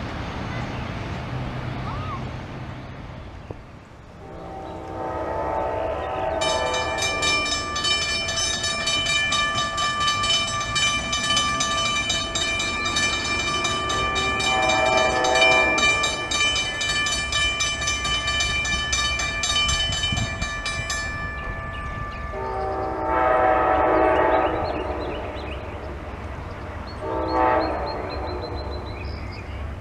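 Train horn sounding a series of blasts, some long and one short, over the low rumble of a passing train. A bell rings rapidly for about fifteen seconds, between the first and second blasts and past the second.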